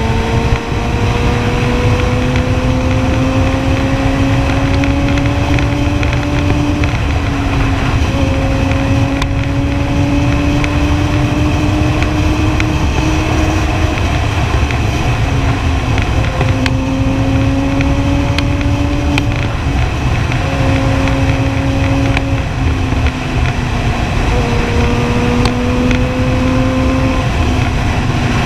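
Kawasaki Ninja ZX-10R inline-four engine under way on the road, its note climbing slowly and stepping down at several upshifts, with heavy wind rush on the microphone.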